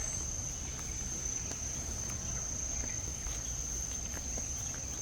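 Forest insects droning steadily at one high pitch, over a low rumble.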